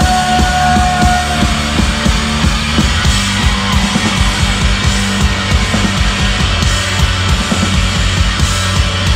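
A rock band playing loud and live: electric guitars and bass over a steady driving drum beat, in an instrumental passage without singing. A high held guitar note fades out in the first second and a half.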